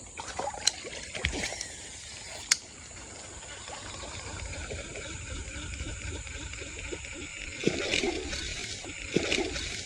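Water splashing and trickling at the surface, with two sharp clicks in the first few seconds.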